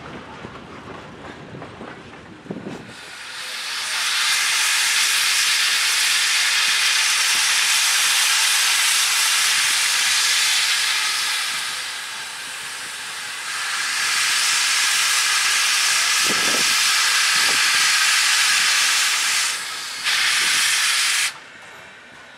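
Railroad cars rumbling past for about the first three seconds. Then steam locomotive No. 90, a 2-10-0, lets off a loud, steady hiss of steam from beneath its boiler. The hiss eases off briefly about midway and cuts off suddenly near the end.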